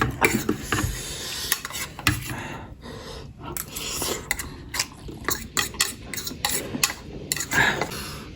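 Cutlery clinking and scraping against plates and bowls while eating, a quick irregular run of small clicks and scrapes.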